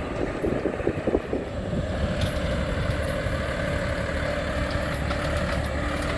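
A vehicle's engine and road noise heard while riding along, with some rattling in the first second or so, then running steadily with a constant hum.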